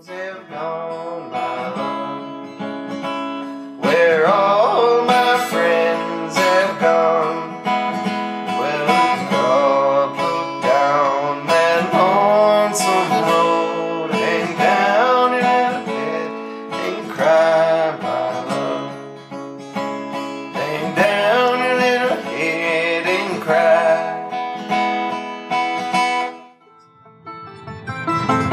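Acoustic string-band music in a bluegrass vein: strummed acoustic guitar under a wavering, bending melody line. It fades out about a second before the end, and another tune starts.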